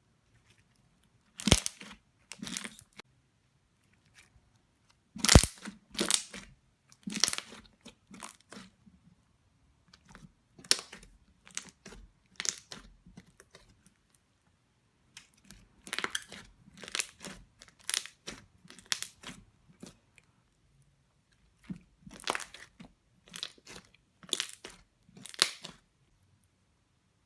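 Slime being pressed and stretched so that its trapped air bubbles pop, giving sharp, crisp crackles in quick clusters separated by short pauses.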